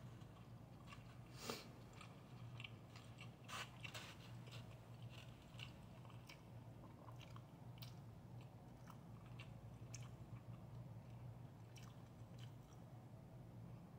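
Faint chewing and mouth sounds of a person eating fried rice, with scattered small clicks and two louder ones in the first four seconds, over a steady low hum.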